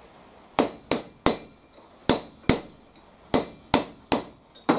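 A hammer striking metal nine times in quick runs of two or three blows.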